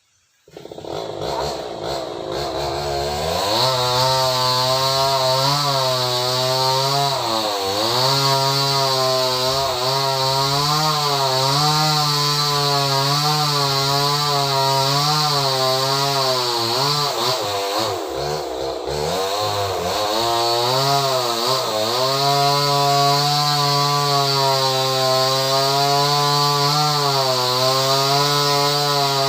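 Small chainsaw revving up and cutting into a very large tree trunk, its pitch wavering as the chain works under load. It eases off twice partway through, then goes back to full revs.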